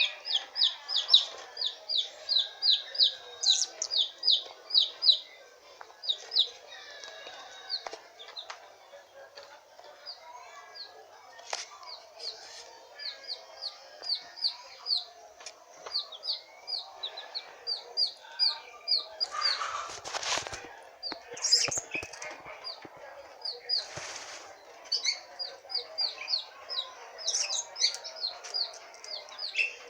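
Blue-crowned hanging parrot giving runs of rapid, high, sharp chirps, about five a second, with pauses between the runs. About two-thirds of the way through come two brief rustling bursts.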